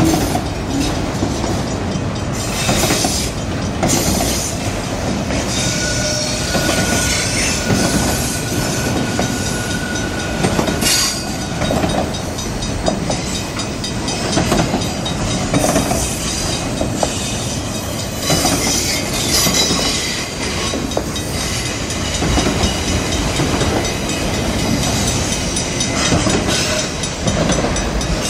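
Freight train of autorack car carriers rolling past at a level crossing: a steady rumble and clatter of steel wheels over the rails. A thin, steady wheel squeal holds from about six to twelve seconds in.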